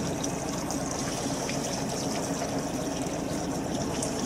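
Steady hum of a small fishing boat's engine mixed with a constant rush of running water.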